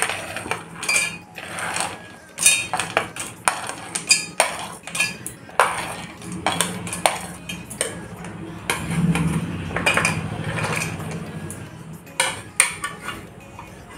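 A steel spoon clinking and scraping on a plastic plate, and peanuts and cashews rattling as they are tipped into a stainless-steel mixer-grinder jar: many short sharp clicks, busiest about two-thirds of the way in.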